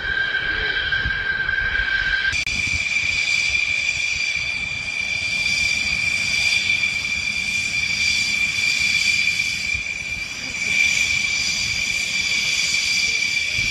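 Dassault Rafale fighter jets taxiing: the steady high-pitched whine of their Snecma M88 turbofan engines over a low rumble. The whine steps up to a higher pitch about two seconds in.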